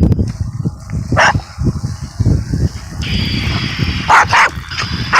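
Small dog barking in short sharp barks: one about a second in and three close together near the end, over a continuous low rumbling noise.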